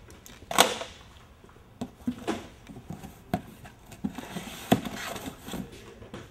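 Irregular knocks, taps and short rustles of things being handled at an open cardboard box, with a sharp knock about half a second in and another just before five seconds in.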